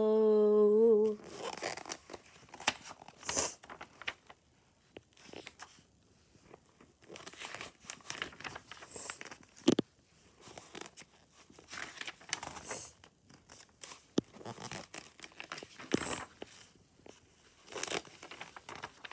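Paper picture-book pages being handled and turned, giving a series of irregular rustles and swishes with a sharp click partway through. It opens with a short, wavering vocal sound lasting about a second.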